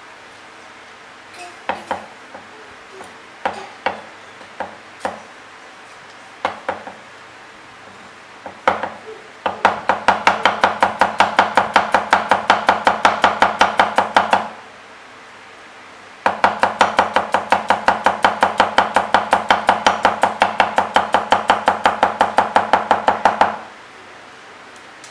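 Chinese chef's knife slicing garlic cloves thinly on a wooden chopping block. First come a few scattered single knocks of the blade on the wood. Then come two fast, even runs of cuts at about six a second, the second run starting after a short pause.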